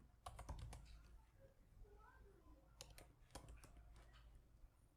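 Faint clicks of a computer keyboard and mouse, in a short cluster about half a second in and a few more around three seconds in.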